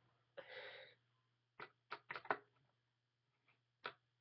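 Faint breath sounds of a woman who has been crying: a brief shaky inhale or sniff about half a second in, then a few soft mouth clicks, over a faint steady low hum.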